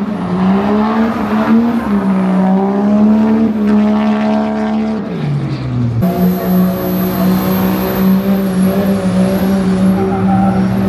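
A vehicle engine running at high revs, its pitch rising and falling for about five seconds, then changing abruptly and holding steady.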